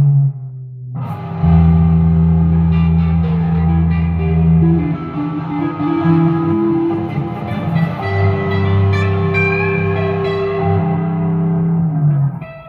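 Two electric guitars jamming together: long held low notes under a moving higher line. They stop together near the end.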